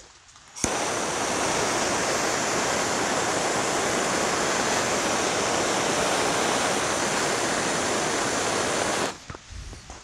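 Handheld gas torch lit with a click, then burning with a steady hiss for about eight seconds before being shut off: flame-sterilizing the blades of pruning shears between cuts.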